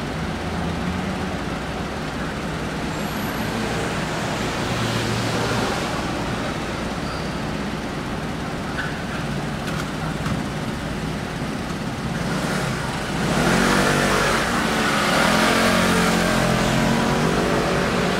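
Steady city street traffic with motor scooters and cars going by. About two-thirds of the way in it gets louder as a vehicle passes close, its engine note wavering.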